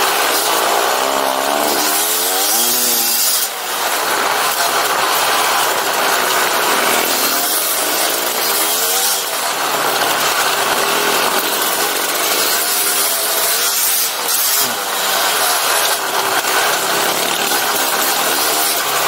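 KTM 250 dirt bike engine being ridden hard, its pitch climbing and falling back several times as the throttle opens and closes through the gears, easing off briefly about three and a half seconds in and again near fifteen seconds. Heavy wind rush on the camera microphone runs under it.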